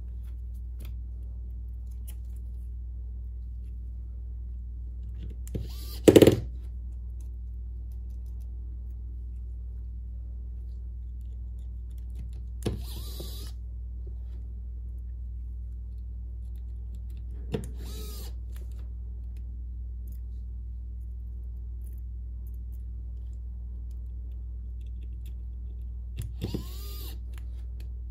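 Electric precision screwdriver driving small phone screws back in, in four short whirring bursts several seconds apart, the motor briefly spinning up and down each time; the second burst is the loudest. A steady low hum runs underneath.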